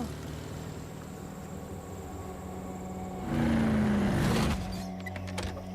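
A road vehicle driving: a steady low engine rumble, with a louder rush and a falling tone for about a second, a little past the middle.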